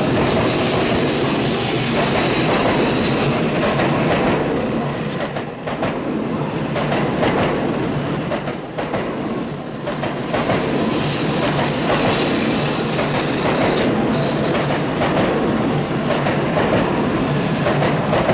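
N700-series Shinkansen train pulling out past the platform end, close by: a steady rush of wheels on rail and running gear that dips briefly twice near the middle.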